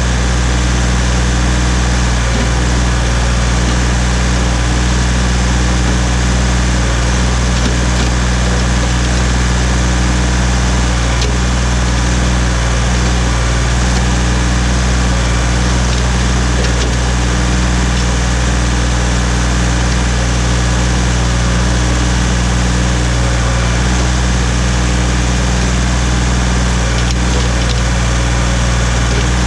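Ford 1710 tractor's three-cylinder diesel engine running steadily at a constant speed.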